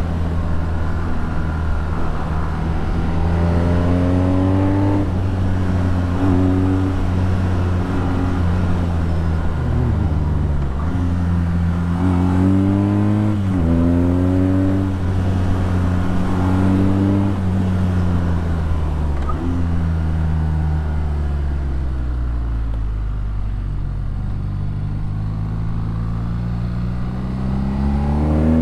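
BMW R nineT's 1170 cc boxer twin through an Akrapovič exhaust, accelerating hard several times with the pitch climbing and dropping sharply at each upshift. Around two-thirds of the way in the revs fall away slowly as the throttle closes, then climb again near the end.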